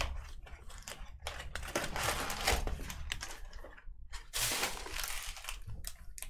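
Trading cards and plastic card holders being handled and sorted on a table: irregular clicks, taps and rustling, busiest about two seconds in and again past the middle.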